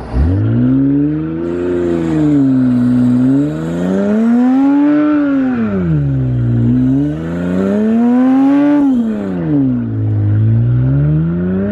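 Mitsubishi Eclipse engine revving hard, its pitch climbing and falling again and again in long surges, about three peaks in the span, as the car is driven flat out on dirt.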